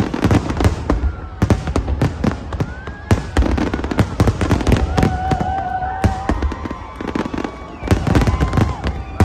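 Aerial fireworks display: shells bursting in dense volleys, several booms and crackling reports a second over a continuous low rumble.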